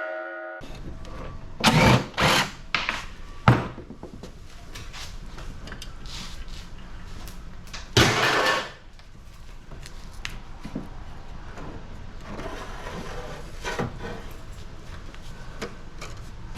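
Clanks, rattles and scrapes of sheet-metal parts being handled while an air-conditioning unit is taken apart for scrap: a few loud knocks near the start, the loudest, longer scrape about eight seconds in, then lighter knocks.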